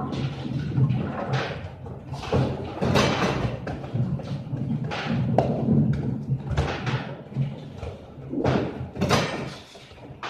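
Bowling alley din: a string of knocks, thuds and clatters from bowling balls rolling and knocking together in the ball return and pins being struck, over a steady low hum.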